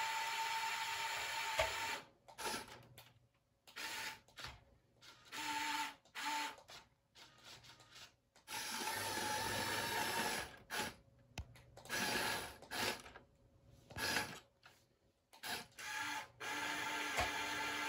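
Electric motors and plastic gearing of a building-block remote-control forklift whirring with a steady whine, stopping and starting again in short runs through the middle as the mast and forks move.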